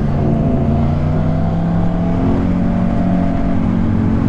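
Motorcycle engine running at steady revs while riding through a road tunnel, its note echoing off the tunnel walls.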